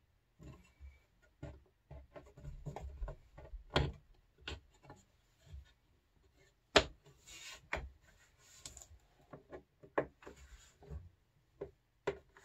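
Steel bar clamps being handled and set on a glued-up plywood panel: irregular clicks and knocks of the clamp parts against the wood, the sharpest about seven seconds in, with short rubbing and sliding sounds around seven to nine seconds in.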